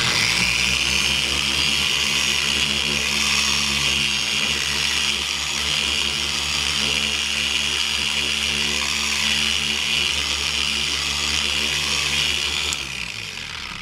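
Corded electric orbital polisher with a foam pad running steadily as it buffs polish onto a painted motorcycle fairing, with a steady motor hum and a hiss from the pad. Near the end it is switched off and spins down, falling in pitch.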